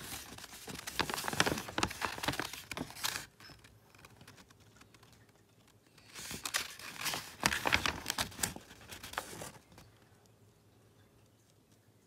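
A paper scroll rustling and crinkling as it is handled and shifted, in two bursts of about three seconds each: one at the start and one from about six seconds in.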